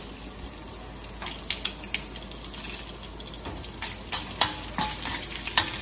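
Dried red chilies, mustard seeds and urad dal frying in hot oil in a stainless steel pan, a steady sizzle of a tadka (tempering). A metal spoon stirring clicks against the pan, several sharp clicks from about four seconds in.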